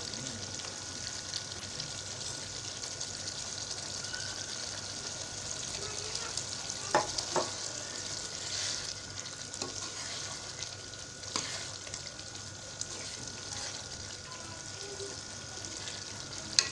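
Chicken and potato curry sizzling in a nonstick wok as a spoon stirs it, with a few sharp knocks of the spoon against the pan about seven and eleven seconds in.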